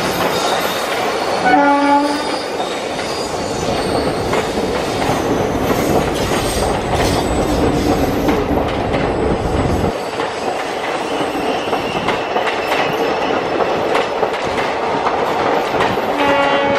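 Blue passenger coaches of an Indian Railways express running past at speed, with steady rail noise and wheels clattering over the rail joints. A locomotive horn sounds briefly about two seconds in and again near the end. The deep rumble eases about two-thirds of the way through.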